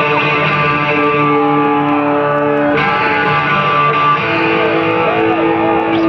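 Live hard rock band playing loud, with electric guitars holding long chords that change a few times.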